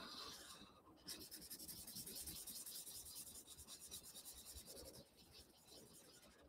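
Felt-tip marker scribbling on paper in rapid back-and-forth strokes as the black pupils of a drawn eye are coloured in. The sound is faint and eases off about five seconds in.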